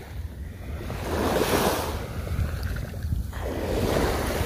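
Small waves washing up on a sandy shore, twice swelling in, over a steady low rumble of wind on the microphone.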